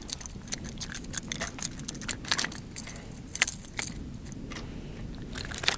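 Irregular light metallic clicking and jingling from a crankbait's treble hooks and split rings as a hooked small spotted bass shakes and is handled on the line.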